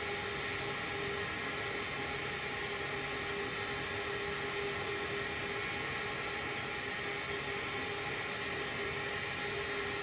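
Gas HVAC heating system running its pre-ignition start-up stage: a steady whir with a steady hum. It is an ignition attempt that ends without the burner lighting, the intermittent no-ignition fault.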